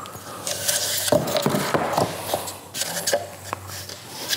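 Duravana flooring planks being handled, shuffled and set down one on another: a quick string of light clacks and taps with some rubbing and sliding between them.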